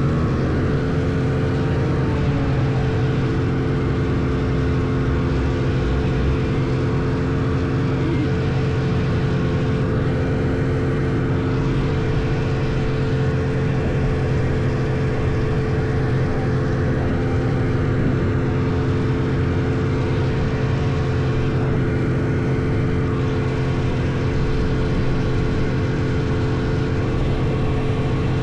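Vintage snowmobile's two-stroke engine running at a steady cruising speed, its pitch holding even with no revving up or down.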